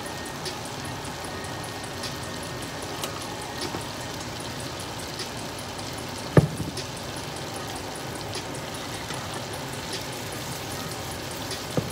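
Liquid bubbling and simmering steadily in frying pans on the stove. A single sharp knock about halfway through.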